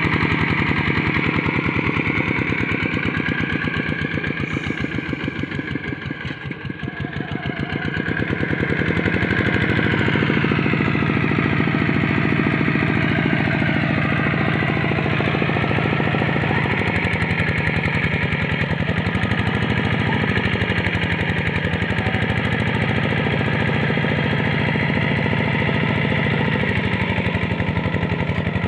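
Quick two-wheel hand tractor's single-cylinder diesel engine running under load while ploughing a deep, wet paddy field, a rapid steady exhaust beat. The level sags for a few seconds early on and then recovers, and the engine's pitch dips and recovers a few times later.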